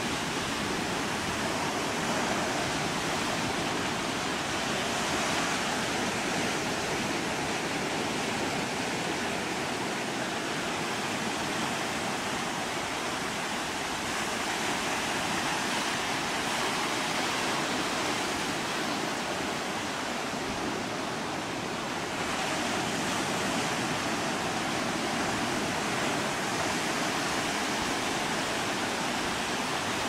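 Steady, even rushing noise with no distinct gull calls.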